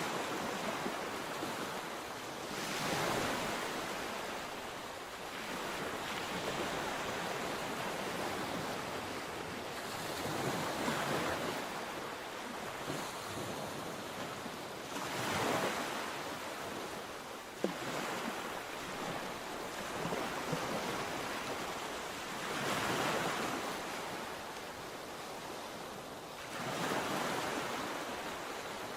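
Mediterranean sea waves breaking and washing onto the shore, surging in a fresh wave every several seconds over a steady rush of surf.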